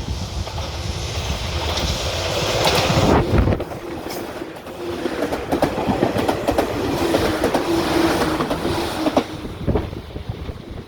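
A train on the Izu Kyuko line passing the level crossing at close range, loudest about three seconds in, with the wheels clacking over the rail joints as the cars go by and a steady tone from about six to nine seconds.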